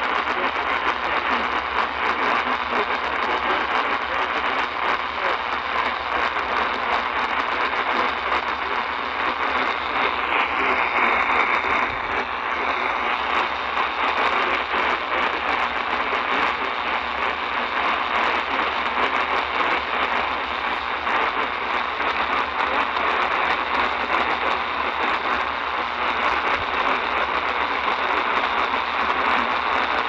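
Steady static hiss from an Eton portable radio's speaker, with no broadcast coming through. A faint wavering whistle rises out of the hiss briefly about ten seconds in.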